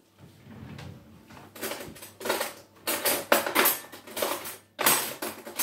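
Metal cutlery rattling and clinking in a kitchen drawer as it is pulled open and rummaged through for a fork, in a run of short clattering bursts.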